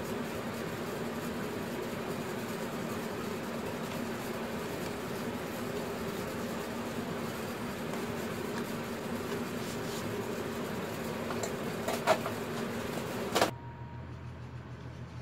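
A steady mechanical hum, like a running fan, with a few sharp clicks near the end. The sound then cuts off suddenly to a quieter, lower hum.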